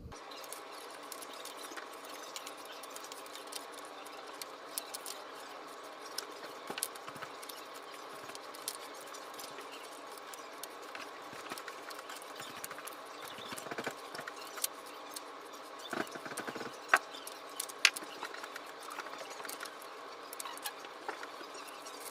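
Thread tap being hand-turned into a bicycle fork's steer tube, a half turn forward and a quarter turn back, cutting threads: scattered small metallic clicks and creaks over a steady hiss. The two sharpest clicks come about three-quarters of the way through.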